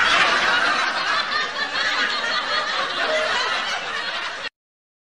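Canned laughter sound effect, many people laughing at once, cutting off abruptly about four and a half seconds in.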